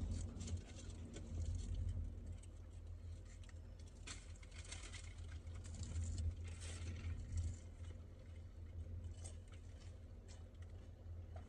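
Quiet eating sounds: scattered small clicks and rustles of chewing fried chicken and handling food packaging, over a steady low hum.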